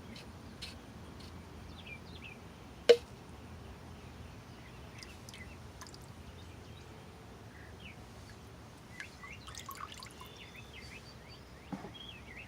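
Light water dripping and splashing with birds chirping in the background. There is one sharp knock about three seconds in, and a few small clicks and splashes near the end.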